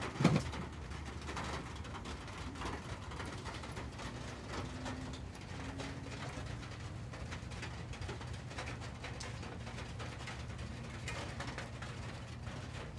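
Light rain pattering steadily, with a few soft, low bird coos in the middle. A short, louder low falling sound comes right at the start.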